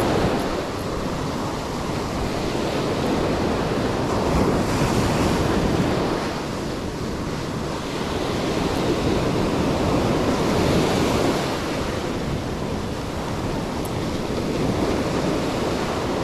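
Rough surf breaking and washing up a beach, with wind noise on the microphone. The wash swells louder about four seconds in and again around ten seconds.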